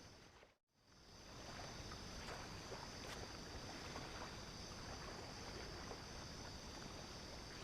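Steady wash of surf and wind on a beach at night, with a thin, steady high-pitched tone over it. The sound drops out completely for a moment about half a second in, then resumes unchanged.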